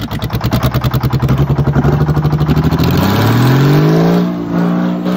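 Detroit Diesel two-stroke diesel engine on a generator set running loud, with a fast, even pulsing beat. About three seconds in, its pitch rises as the engine revs up, then holds steady at the higher speed.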